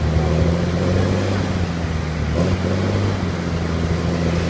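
Heavy diesel engine of a logging skidder running steadily, a low even drone, with one brief metallic clank about halfway through.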